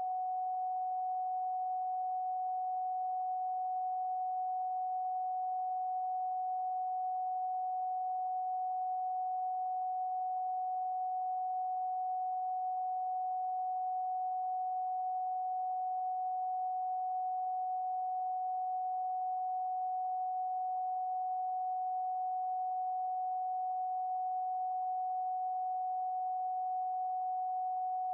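A steady synthesized pure tone, held without any change in pitch or loudness, with a fainter, very high tone above it: a sustained 'protection frequency' tone played for spiritual listening.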